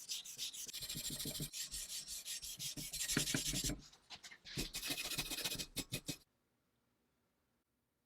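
Rapid back-and-forth hand rubbing with an abrasive on the rifle's parts, in quick rasping strokes. There is a brief pause about four seconds in; the rubbing stops abruptly about six seconds in, and near silence follows.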